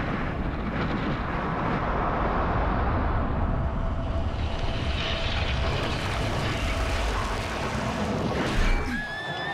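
Film sound design for a bullet flying in slow motion: a long, steady rushing drone. Near the end comes a sudden loud hit as the bullet strikes a head that has turned to metal.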